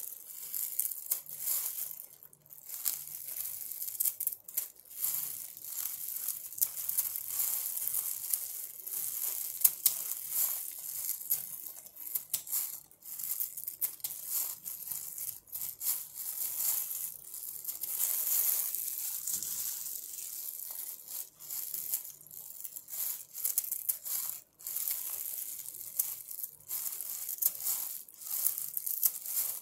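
Scissors snipping through bunches of pandan leaves: a quick, irregular run of crisp crunching cuts, with the rustle of the stiff leaves as they are handled.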